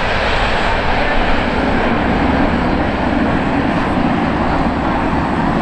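Turboprop aircraft engines running while taxiing on the ramp: a steady, loud drone.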